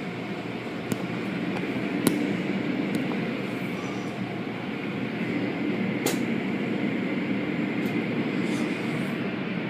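Automatic car wash heard from inside the car: a steady rumble of the wash machinery, spinning brushes and water spray, with a few sharp knocks, at about one, two and six seconds in.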